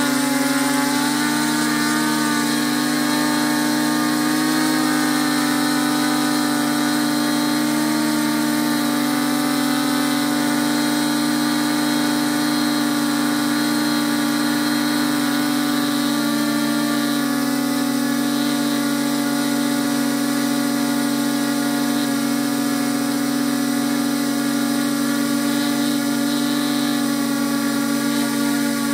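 Multirotor drone's electric motors and propellers buzzing: a steady low hum with several higher tones that waver and drift against one another as the rotor speeds change, most noticeably in the first ten seconds and again around sixteen to eighteen seconds in.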